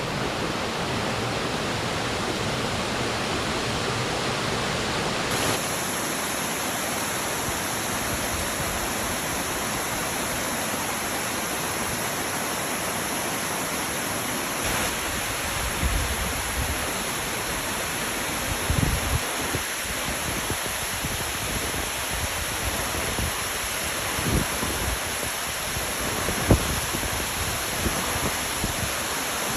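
Waterfall rushing with a steady, even hiss of falling water. A few short low thumps come through in the second half.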